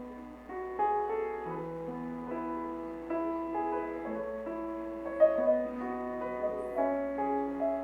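Instrumental piano music: a calm melody over held chords, with no singing.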